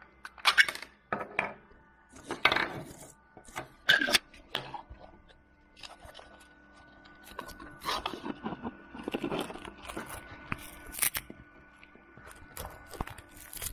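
Hard 3D-printed plastic parts being handled and fitted together: irregular clicks, taps and scrapes, spaced a second or two apart, over a faint steady hum.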